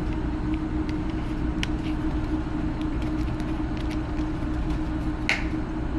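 Steady low mechanical hum with one held tone, a few faint light clicks about one and a half seconds in, and a sharper click about five seconds in.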